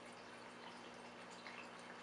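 Aquarium filtration running faintly: water trickling and dripping with many small splashes over a steady low pump hum.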